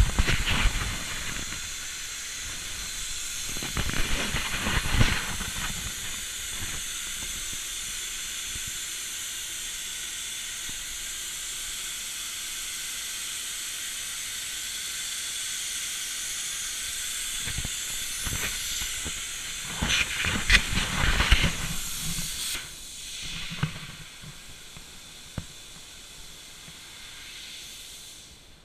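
Hypertherm Powermax 125 plasma torch cutting 5 mm steel plate on a CNC burn table: the plasma arc makes a steady, loud hiss. The hiss cuts off about three-quarters of the way through as the cut ends. Three louder bursts of rustling and bumps fall near the start, about four seconds in, and about twenty seconds in.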